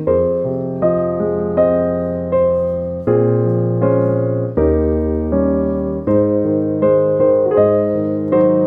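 Background piano music: notes or chords struck about every three-quarters of a second, each fading away before the next.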